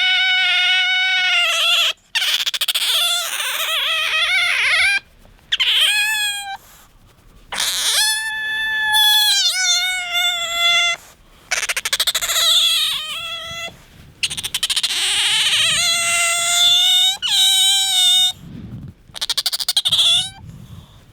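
Asian small-clawed otter squeaking in a series of long, high-pitched calls broken by short pauses, some sliding up and down in pitch. These are its begging, attention-seeking calls.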